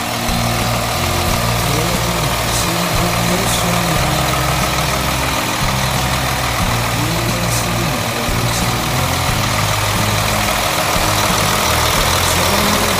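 Diesel engine of a Neoplan coach idling steadily with its engine bay open, heard close up, with a song playing over it.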